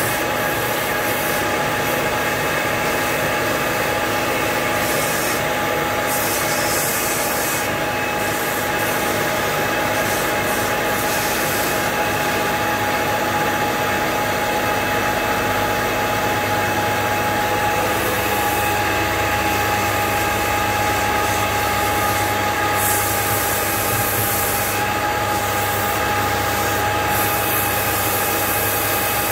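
Belt-driven wood lathe running with a steady mechanical whine while a hand-held tool rubs against the spinning wooden table leg, with a few short bursts of higher hiss.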